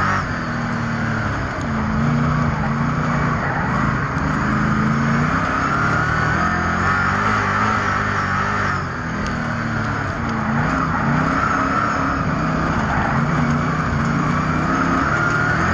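Speedway race car engines running hard on the oval, their pitch rising and falling over and over as they accelerate down the straights and lift for the turns, with a steady rush of engine and track noise behind.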